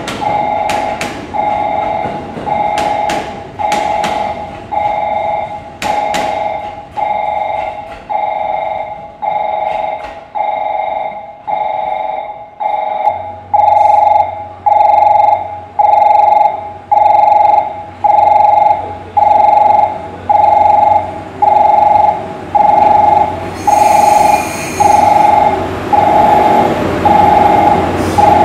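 Railway level-crossing warning bell ringing a two-tone ring about once a second, each ring fading away. A few sharp clicks sound in the first seconds, and about halfway through the rings grow louder as a low steady hum joins them.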